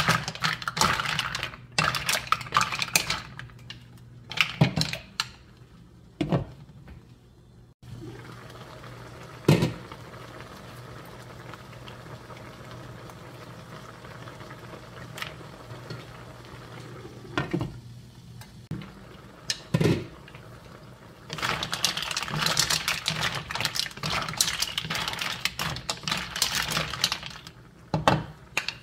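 Mussels steaming and sizzling in a hot pan while a wooden spatula stirs them: shells clatter and scrape against the pan in dense bursts at the start and again over the last several seconds. In between there are single sharp knocks over a steady hiss of steam.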